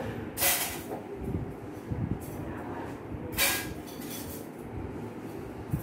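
Two short hissing bursts, about three seconds apart, from a hose-fed nasal atomizer spraying vasoconstrictor decongestant into the nose to shrink the nasal lining before endoscopy.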